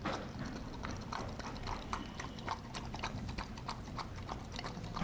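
A dog eating raw food from a stainless steel bowl, biting and crunching at a frozen turkey steak, with sharp crunches about three a second.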